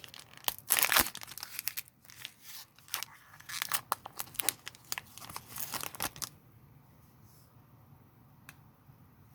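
Foil wrapper of a Pokémon trading card booster pack being torn open and crinkled by hand, a dense run of crackling and tearing that stops about six seconds in.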